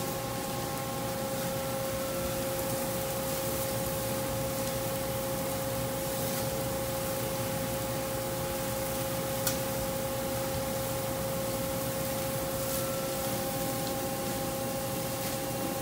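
Steady rushing ventilation noise with a constant hum from the exhaust hood over a gas charbroiler, mixed with the sizzle of burger patties cooking on the grill. A single sharp click comes about nine and a half seconds in.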